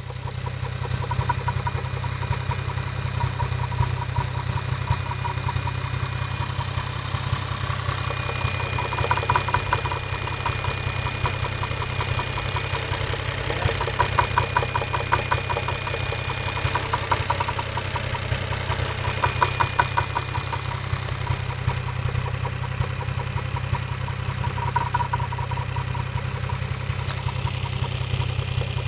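Toyota 1JZ-GTE VVT-i turbocharged straight-six idling with a regular knock in the engine, stronger in spells.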